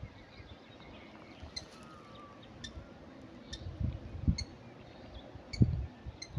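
A small bird repeating a short, sharp chip call about once a second, with a faint whistled note near two seconds in. In the second half, gusts of wind rumble on the microphone and are louder than the bird.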